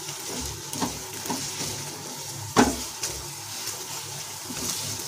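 Dhokla pieces sizzling in oil and ketchup sauce in a frying pan as a wooden spatula stirs them, with a few scrapes and knocks of the spatula against the pan, the sharpest about two and a half seconds in.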